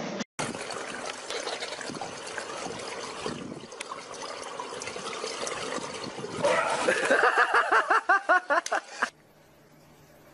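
Swimming-pool water lapping and splashing. For the last few seconds before it cuts off, a person's voice repeats a short sound about five times a second, like laughter.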